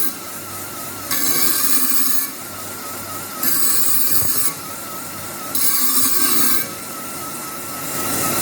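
Edge of a steel cylinder repair sleeve being chamfered. It makes about four abrasive strokes, each about a second long and evenly spaced, the last beginning near the end. A steady machine hum runs underneath.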